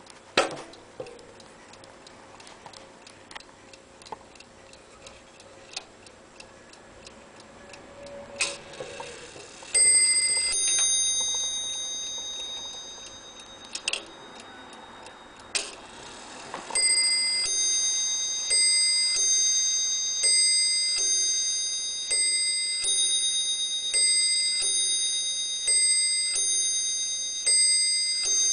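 Ornate mantel clock ticking, with a few knocks from the clock being handled, then its striking movement rings a bell once near the middle. Later it strikes seven evenly spaced strokes a little under two seconds apart, each ringing on and fading: the clock striking seven o'clock.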